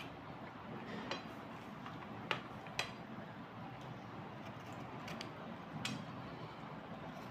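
Small knife blade scraping along a wet slate pencil, a steady scraping with several sharp clicks. The loudest two clicks come close together about two and a half seconds in.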